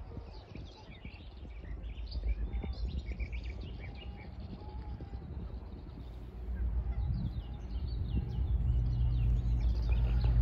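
Small birds chirping and singing, while from about six seconds in the low drone of an approaching Class 60 diesel locomotive rises and grows steadily louder.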